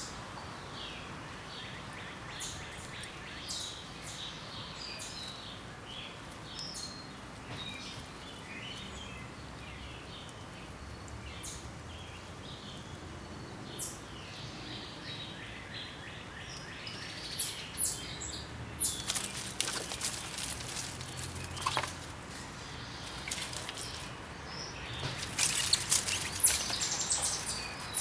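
Backyard ambience with birds chirping and calling irregularly. About two-thirds of the way through, and again near the end, come louder bursts of crackling rustle.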